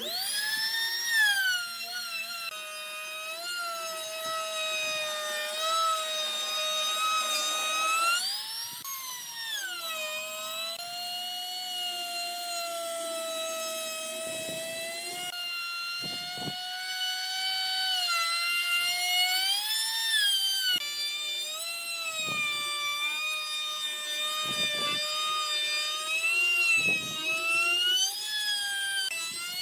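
High-speed electric power tool whining as it cuts wood, its pitch sagging and recovering as the load changes, with brief rasps of cutting noise.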